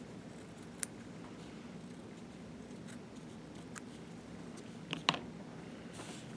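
Small metal hand tools being handled during a coil build: a light click a little under a second in and a louder double click about five seconds in, with a soft brush of cotton near the end.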